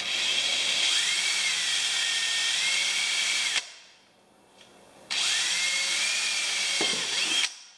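Power drill with a small bit boring pilot holes into the plastic kayak hull, run in two bursts of about three seconds each, its motor whine rising as it spins up.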